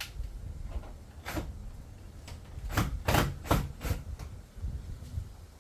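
A handful of sharp clicks and knocks of plastic interior trim and tools being handled, with a quick run of four knocks in the middle.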